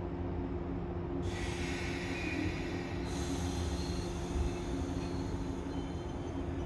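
JR 185 series electric train pulling away from a platform: a steady electrical hum, a hiss that starts suddenly about a second in, then thin high squeals that come and go from about halfway as the train begins to move. The squeal is one the uploader half-jokingly takes for the train scraping the platform edge.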